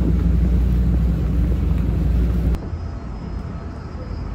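Loud, steady low outdoor rumble that cuts off about two and a half seconds in, followed by quieter open-air street ambience.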